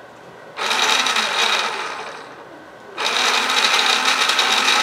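Small electric motor of a toy motorized pottery wheel whirring as the wheel head spins with a ball of clay on it. It starts up about half a second in and winds down, then starts again about three seconds in.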